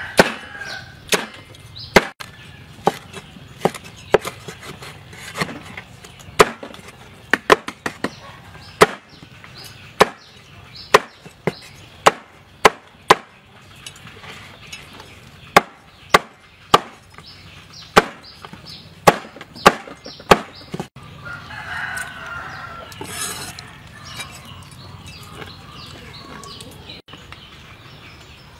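A heavy knife chopping roasted pig's head meat on a wooden cutting board: sharp, irregular chops about one a second, stopping about twenty seconds in. A chicken calls in the background after the chopping stops.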